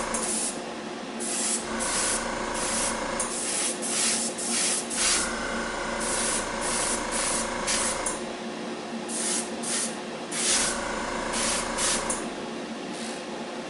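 Gravity-feed airbrush spraying thinned paint in repeated on-off bursts of hiss, from short puffs to about a second long, as the trigger is worked. Underneath runs a steady motor hum.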